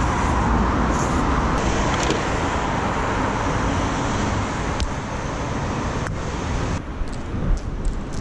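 Steady road traffic noise from passing cars on the highway, which drops and thins about seven seconds in. Two sharp clicks sound over it, about five and six seconds in.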